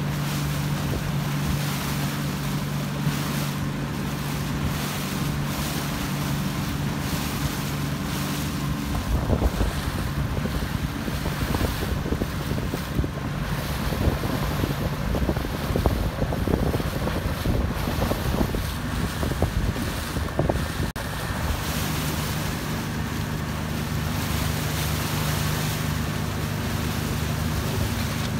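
A motorboat engine hums steadily under wind buffeting the microphone and water rushing and splashing past the hull. About a third of the way in, gusty wind rumble and splashing swamp the engine hum for around twelve seconds, and then the hum comes back clearly.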